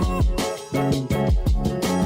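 Background music with a steady beat: drums, a bass line and a melody, with a brief drop-out about half a second in.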